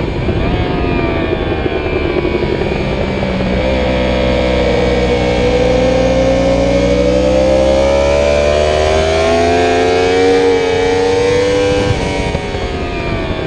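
Yamaha YZF-R1's crossplane inline-four heard from onboard, with heavy wind rush. It slows under braking with a quick downshift blip about half a second in, then pulls hard in second gear with a steadily rising pitch out of the corner. Near the end there is a sudden drop in pitch at an upshift.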